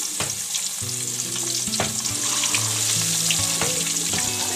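Whole fish deep-frying in hot oil in a wide pan: a steady sizzle with scattered crackles and pops.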